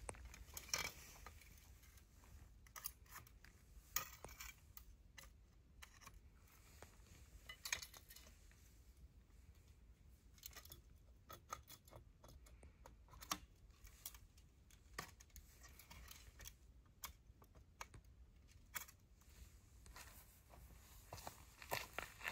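Faint, scattered clicks and light metallic clinks of tarp-pitching gear being handled: metal tarp poles and pegs set down and moved on gravel, a few clustered together.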